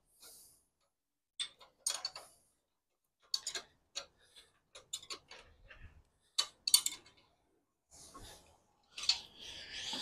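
Irregular metal clicks and clinks from a motorcycle jack being handled, with a short scraping rustle near the end.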